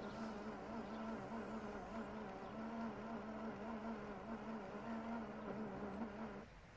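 The small motor and toothed-belt drive of a mechanical trick suitcase running with a steady hum that wavers slightly, then stopping abruptly about six and a half seconds in.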